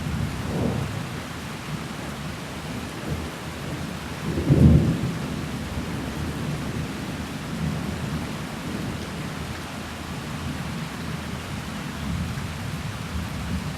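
Thunderstorm: steady rain with low thunder, one louder roll of thunder about four and a half seconds in.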